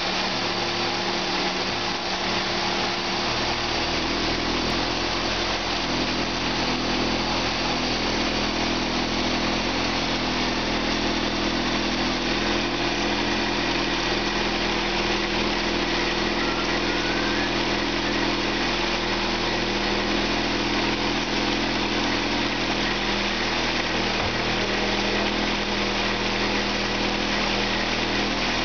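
A 2001 Saturn S-series twin-cam 16-valve 1.9 L four-cylinder engine idling steadily, heard from the open engine bay. It runs evenly, an engine that tested good.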